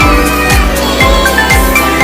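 Background music with a steady beat: a kick drum about twice a second under a bright plucked or mallet-like melody.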